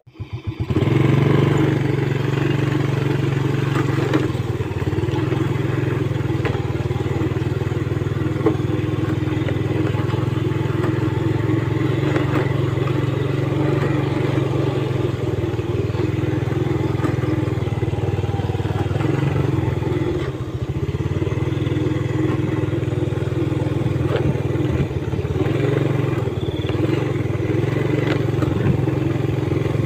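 Motorcycle engine running at a steady speed while being ridden, with a short drop in level about twenty seconds in.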